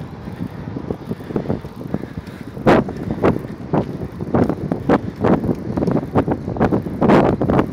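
Bicycle being ridden over a rough track, its frame rattling and knocking irregularly over bumps, with wind on the microphone.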